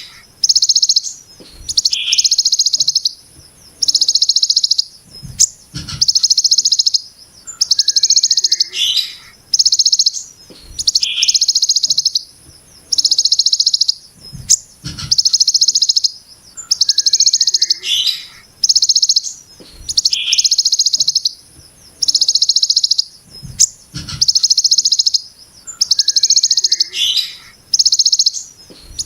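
Songbird giving the rapid, harsh 'brem' call of the ciblek gunung (hill prinia) type: high, buzzy bursts just under a second long, repeated about once a second with short gaps. Some bursts are led in by a few quick falling notes, and a few faint low thumps sound underneath.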